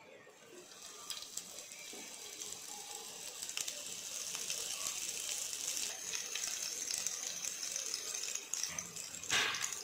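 Green bell pepper (capsicum) rings sizzling in hot oil in a nonstick pan. The sizzle builds as more rings go in, with light clicks as they are dropped, and there is a louder brief burst about nine seconds in.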